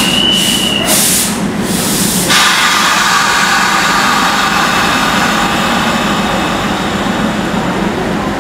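Twin ALCO diesel locomotives idling with a steady hum. In the first two seconds there is a loud hiss of air and a short high tone, as the lead locomotive is uncoupled from its coaches.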